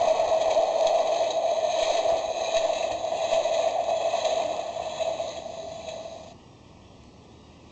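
Electronic toy level crossing's small speaker playing its recorded train-passing sound effect, a steady rushing rumble that fades and cuts off about six seconds in.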